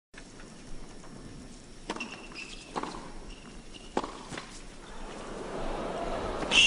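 Tennis ball bounced a few times on an indoor court before a serve, short dull knocks, with tennis shoes squeaking on the court surface. Near the end a louder sharp hit and squeak as play starts.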